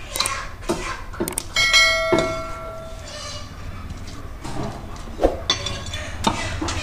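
Heavy cleaver chopping through sheep head bone on a wooden block: a string of sharp, irregular chops. One strike a little under two seconds in is followed by a short metallic ring.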